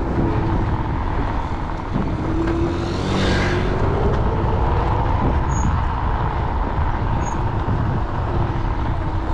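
Segway GT2 electric scooter riding along, with wind and road rumble on the microphone and its electric motor's whine rising in pitch a few seconds in. A brief rush of hiss comes about three seconds in.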